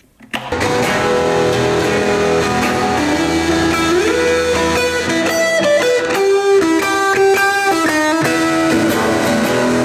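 Hollow-body electric guitar played through a Marshall portable speaker: a melodic line of held single notes, with one note slid upward about four seconds in and a quicker run of separate notes after it.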